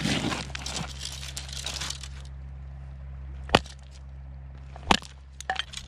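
A wooden fish club strikes a pink salmon's head twice, about a second and a half apart, with sharp knocks, dispatching the fish to keep it. Before that, a crackling rustle of the fish and pebbles being handled on the gravel.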